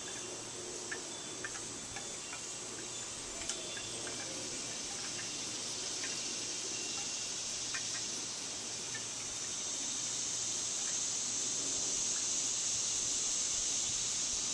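Male cicada singing: a steady, high buzz that swells louder about two-thirds of the way in.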